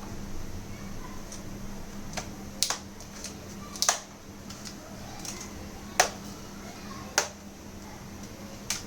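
Sharp plastic clicks and snaps, five of them spread a second or so apart, from a laptop's plastic bottom case being pried off its clips.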